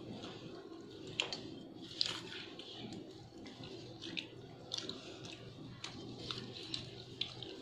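Metal spoons clinking and scraping against steel plates of rice, heard as scattered light clicks, with some chewing, over a steady low hum.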